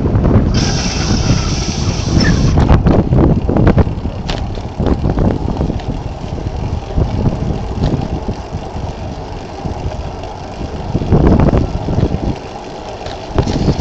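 Strong gusting wind buffeting the microphone in a snowstorm: a loud, uneven low rumble that swells and falls, over a running vehicle engine. A brief hiss comes about half a second in and lasts about two seconds.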